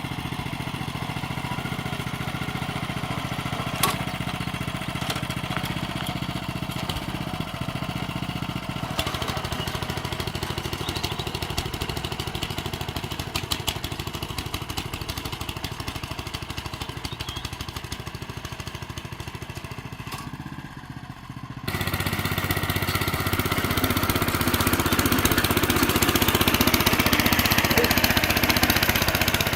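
Honda FJ500 DXL walk-behind tiller's petrol engine running steadily. About three-quarters of the way through it turns abruptly louder and rougher.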